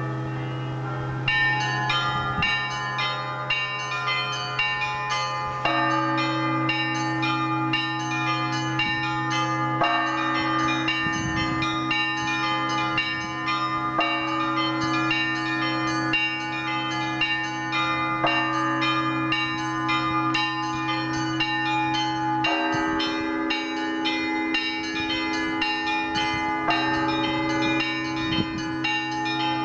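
Orthodox church bells in a full peal: the long hum of the large bells, with the small bells starting a fast, dense run of strikes about a second in and continuing over it.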